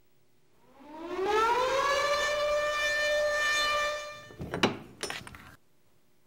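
A siren-like tone that rises in pitch for about a second, holds steady and fades, followed by two sharp hits about half a second apart; then the sound cuts off suddenly.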